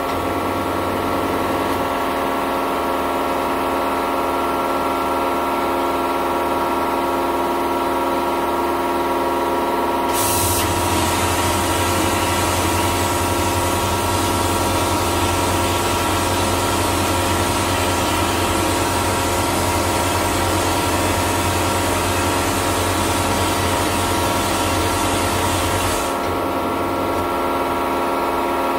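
Vapor blaster at work: the 3D-printed nozzle sprays water-and-abrasive slurry onto a metal part with a steady hiss, over the constant hum of the cabinet's pump. About ten seconds in the hiss turns stronger and brighter, and it eases back a couple of seconds before the end.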